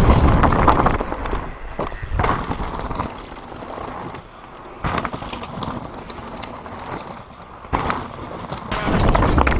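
Mountain bike riding down a rocky trail: tyres rolling and crunching over stones, with the bike rattling. It is loud at first, quieter in the middle, and has sharp knocks about five and eight seconds in, then loud again near the end.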